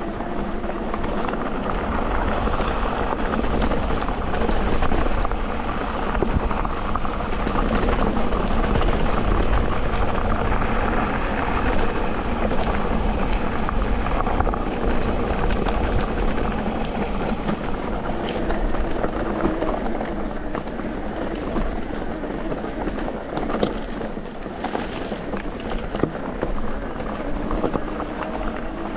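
Electric mountain bike ridden over a dirt trail: a steady rumble of tyres and bike, with scattered sharp clicks and knocks, some around the middle and again near the end.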